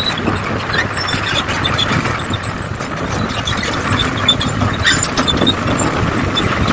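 Engine sound of radio-controlled scale-model construction vehicles running steadily, with short, faint high squeaks scattered through it.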